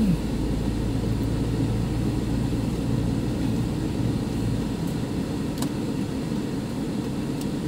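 Car running at low speed, heard from inside the cabin: a steady engine and road rumble. The deepest part of the rumble fades about two-thirds of the way through.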